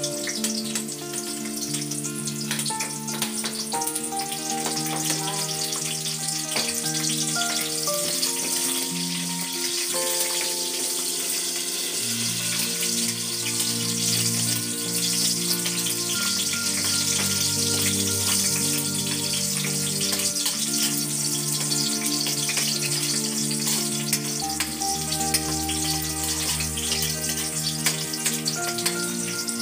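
Garlic and shallots sizzling in hot oil in a wok, with a metal spatula clicking and scraping against the pan as they are stirred. Background music with sustained, slowly changing notes plays over it.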